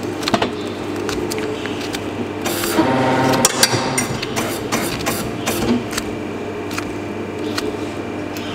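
Hoof knife paring horn from the sole of a cow's claw: a run of short scraping cuts over a steady mechanical hum. A louder droning tone comes briefly about three seconds in.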